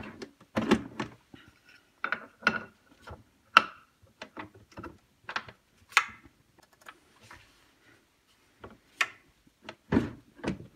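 Irregular clicks, taps and knocks of stand-mixer parts being handled and fitted back together, a few with a short metallic ring.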